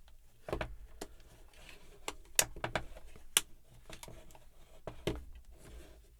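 Plastic headphone parts being handled and fitted together, with a few sharp clicks and knocks and softer ticks in between.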